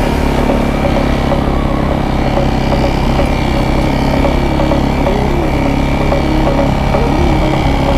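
A KTM enduro dirt bike's engine running steadily as it rides along a dirt track, heard from the rider's helmet camera, with a few small rises and falls in revs in the second half.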